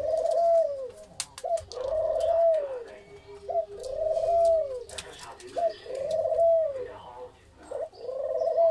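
Caged Australian doves cooing. Each coo is a short note followed by a longer arched note that falls away at the end, repeated five times about every two seconds. A few sharp clicks come between the coos, around a second in and again near the middle.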